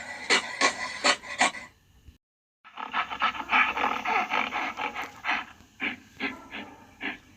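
Gorilla grunting in a quick rhythmic series, about four grunts a second. It stops about two seconds in, and after a brief silence a new run of rapid grunts starts.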